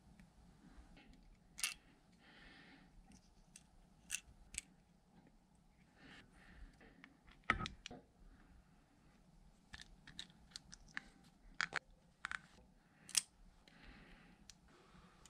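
Small metal parts of a Kubota diesel injection pump clicking and tapping as they are fitted back in by hand, in scattered single clicks with a few brief soft scrapes; the loudest clicks come about halfway through and near the end.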